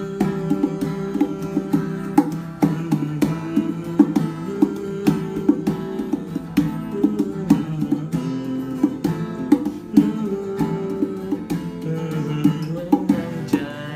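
Acoustic guitar strummed in changing chords, with a hand drum beaten by hand keeping the rhythm in sharp strikes.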